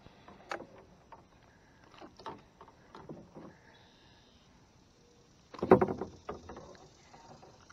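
Handling knocks and rustles in a small kayak while a freshly caught bass is held up and unhooked, with one much louder clattering knock about six seconds in.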